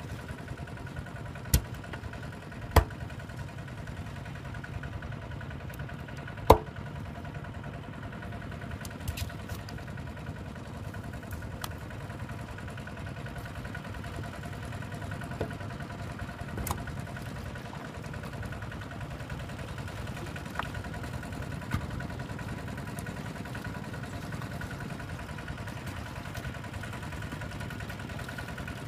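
A small engine running steadily at idle, a constant low hum, with a few sharp knocks, the loudest about six seconds in.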